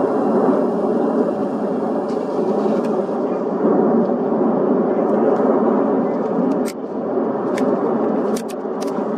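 Steady roar of the erupting Cumbre Vieja volcano, with a few sharp clicks near the end.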